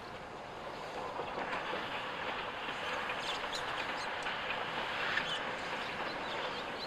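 C58-class steam locomotive hauling passenger coaches past at a distance. The running noise of the train on the rails grows louder from about a second in, with a scatter of short clicks.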